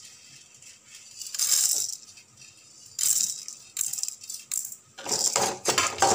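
Dry chana dal and urad dal rattling in a metal kadai, in a few short bursts as they are shuffled with a metal ladle and more are tipped in from a steel plate; a quick run of ladle strokes scraping the pan near the end.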